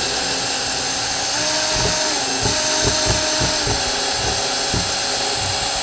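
Power drill running steadily for several seconds, with a faint shifting whine over the noise, then cutting off suddenly: driving out the screws of an old kayak hatch.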